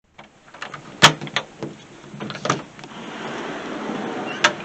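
A door being unlatched and opened: a series of sharp clicks and knocks, the loudest about a second in, then a steady rush of outside noise, and another sharp click near the end.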